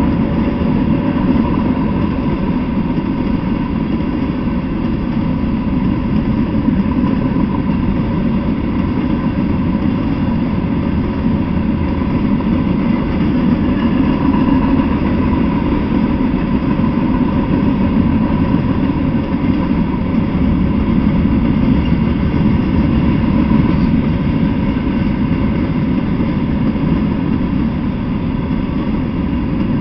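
Freight train of covered hopper cars and tank cars rolling past: a steady, unbroken rumble of the cars on the rails.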